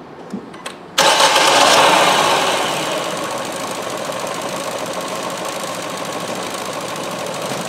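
Ford C-Max 1.6 petrol four-cylinder engine starting about a second in after two light clicks, running fast at first and settling into a steady idle. It is misfiring heavily, with cylinders 2 and 3 not firing.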